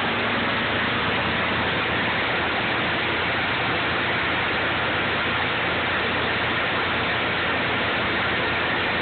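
Morbark wood chipper running steadily, a loud even noise with a faint low engine hum beneath it.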